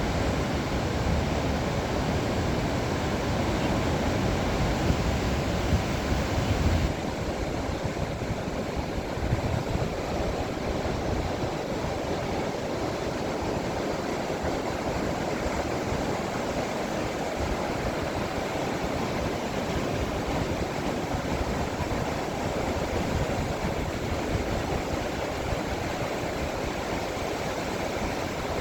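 Ocean waves washing onto a shore in a continuous hiss. About seven seconds in, the deep rumble beneath it drops away.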